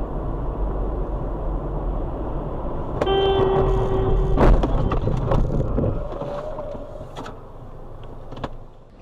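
Car on the move with a steady low road and engine rumble. About three seconds in, a car horn sounds for just over a second, then a sharp knock, the loudest moment, followed by a few lighter clicks.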